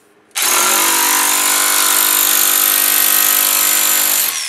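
Electric rotary hammer with a chisel bit running in one loud continuous burst of about four seconds, hammering at a worn rubber-metal suspension bushing on a Mercedes W126 to cut through its rubber and metal sleeve. It starts suddenly, and near the end the motor winds down with a falling whine as the trigger is released.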